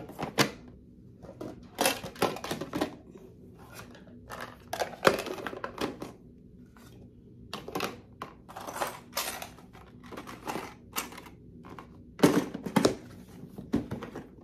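Small hard plastic containers and boxes clattering and knocking against a clear plastic storage box as they are packed into it, in irregular clacks. The loudest clacks come near the end, when the box's lid is shut.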